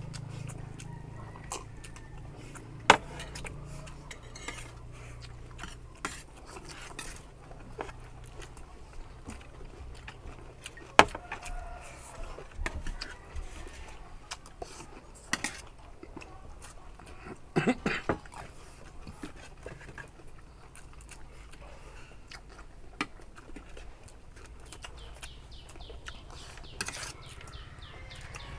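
Cutlery clinking against plates and bowls now and then during eating, with a few sharp louder clinks over a low steady background rumble.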